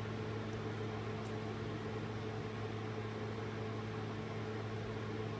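Steady low electrical hum with an even hiss underneath, like a fan or appliance running; no other sound stands out.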